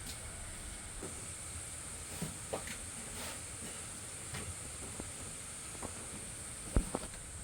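Scattered light clicks and knocks, with one louder knock near the end, over a steady high-pitched hiss.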